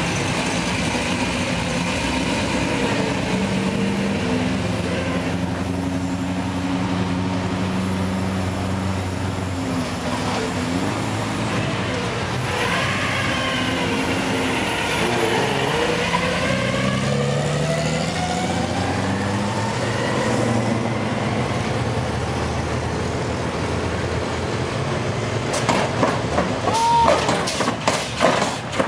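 Engines of classic and muscle cars running as the cars cruise slowly past one after another, their pitch rising and falling as they pass and rev. A few knocks and rustles come near the end.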